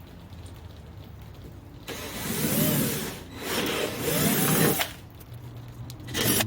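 Cordless drill boring holes, run in two bursts of a few seconds each with the motor's whine rising and falling, then a brief third burst near the end.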